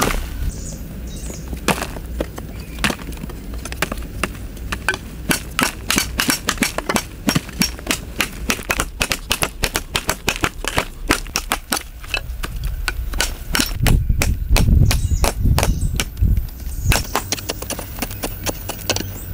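Hand tools striking hard, stony earth again and again, several sharp chopping hits a second from more than one worker, densest in the middle. About three quarters through a low rumble, the loudest part, runs for a couple of seconds.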